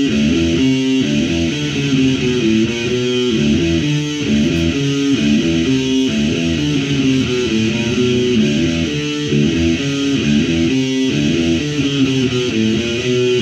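Electric guitar played alone, a repeating riff of quick changing notes.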